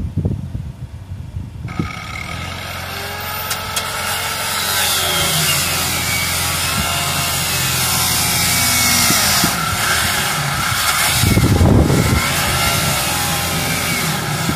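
Electric power tool cutting into the Land Rover Discovery's roof panel. It starts about two seconds in, with a steady hiss and a motor whine that wavers up and down as the tool bites. A short low rumble comes about eleven seconds in.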